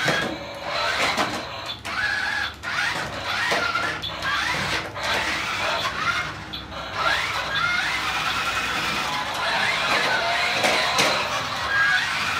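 0133 toy remote-control off-road car running, its built-in speaker playing revving engine sound effects that rise and fall again and again, over the whine of its small electric drive motors and gears, with scattered clicks and knocks as it moves.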